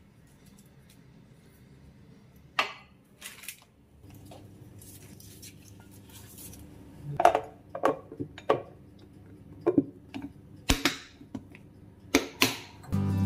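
Light knocks and clicks of a glass food storage container being handled and its plastic lid pressed on, coming closer together in the second half, with the sharpest clicks near the end.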